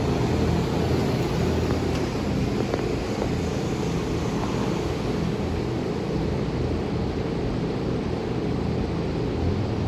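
Steady low droning hum of running machinery, even in level throughout.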